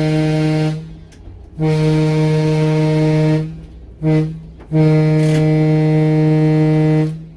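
Electroliner train's horn sounding the grade-crossing signal, long, long, short, long: the end of a long blast, then a long, a short and a final long blast, one low steady note, heard loud from inside the cab.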